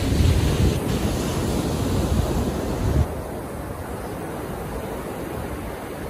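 Ocean surf washing onto a beach, a steady hiss of breaking waves. A loud low rumble of wind buffeting the microphone runs through the first three seconds and drops off sharply about three seconds in.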